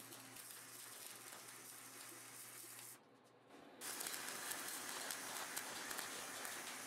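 Wire-feed (MIG) welder arc crackling and sizzling as a bead is laid on a steel tube joint. It starts after a short gap about four seconds in, following a fainter hiss.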